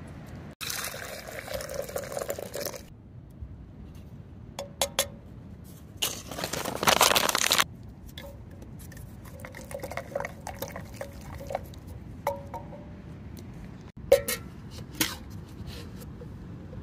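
Water poured from a stainless steel camp pot, twice, the second pour, about six seconds in, the louder, with light clinks of metal cookware between.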